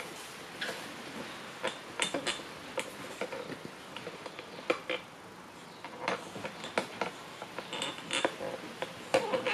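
Irregular light clicks, knocks and scuffs as a dust mop is pushed across a hardwood floor with a pug puppy clambering and scrabbling on the mop head, over a faint steady hiss.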